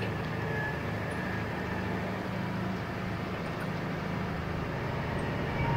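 Farm tractor's engine running steadily at an even, low speed.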